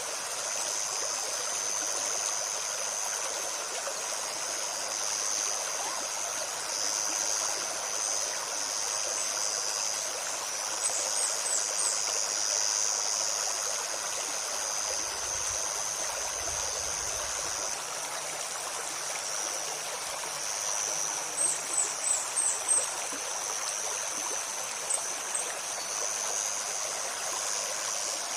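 A shallow forest stream running steadily over stones, with a steady high-pitched insect drone above it. A small bird gives quick runs of short, sharp, high calls twice, about 11 seconds in and again around 22 seconds.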